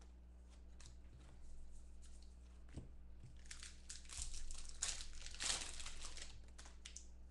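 A foil trading-card pack (2015 Bowman Football) crinkling as it is torn open, most densely from about three and a half to six and a half seconds in, after a few light clicks of cards being handled. A steady low electrical hum sits underneath.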